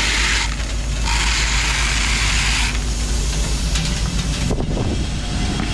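Grain truck's engine idling with a steady low rumble, under loud hissing that starts and stops abruptly in stretches of a second or two.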